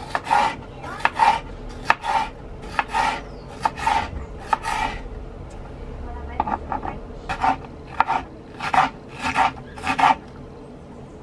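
Chef's knife cutting green bell pepper on a wooden cutting board: a run of crisp cuts, about two a second, with a short pause a little past the middle while the strips are gathered, then dicing resumes.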